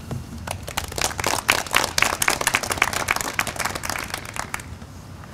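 Audience applauding to welcome a speaker, with many hands clapping at once and dying away near the end.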